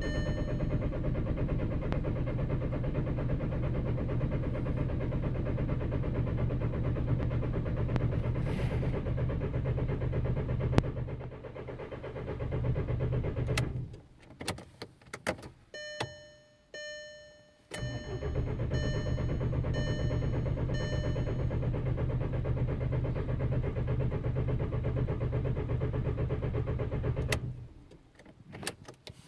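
2003 VW Jetta TDI's 1.9-litre diesel engine turning over on the starter in two long cranks of about ten seconds each, never catching: a crank-no-start fault. Between the cranks a chime beeps repeatedly, about once a second.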